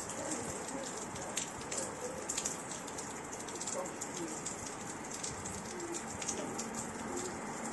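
Steady rain falling on a station platform, with many sharp drop ticks, and a bird cooing softly a few times.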